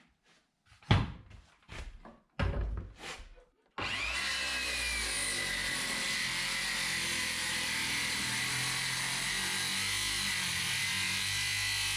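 A few knocks of wooden boards being handled, then about four seconds in a woodworking power tool starts abruptly and runs steadily.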